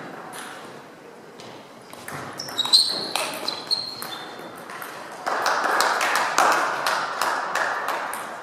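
Table tennis ball clicking off bats and table in a short rally, with ringing pings. About five seconds in, spectators applaud for a few seconds.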